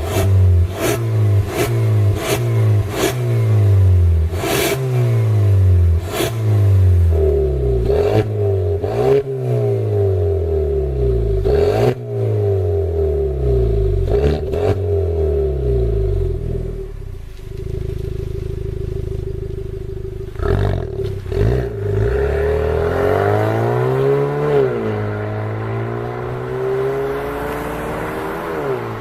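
Kia Sorento 2.0 turbo four-cylinder gasoline engine through an aftermarket dual variable exhaust, revved in quick repeated blips, each dropping away with a pop or crackle from the exhaust. It then settles to a steadier note, with one more rise and fall before running steadily.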